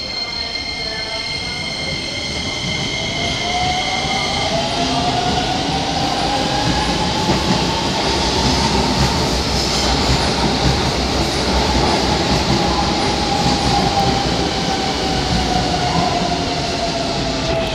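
Hokuso 7500 series electric train pulling along the platform under power: its traction motors whine in a tone that rises as it speeds up and then sinks slowly, over a steady rumble of wheels on the rails that grows louder as the cars pass. A steady high-pitched tone stops about four seconds in.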